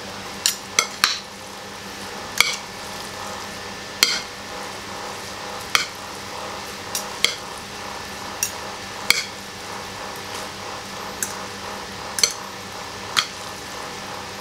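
Metal fork clinking and scraping against a plate while tossing cooked instant noodles: about a dozen sharp, irregular clicks, roughly one a second.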